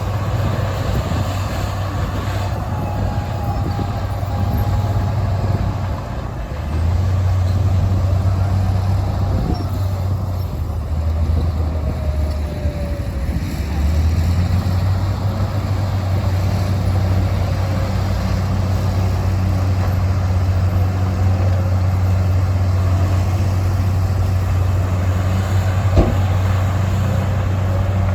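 Heavy diesel earthmoving machinery (dump trucks and bulldozer) running with a steady low engine drone that grows louder about seven seconds in and again about halfway through. Faint high squeals come and go, and a single sharp knock sounds near the end.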